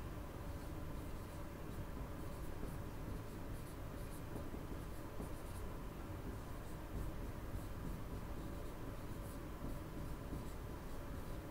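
Marker writing on a whiteboard: a run of faint, short pen strokes.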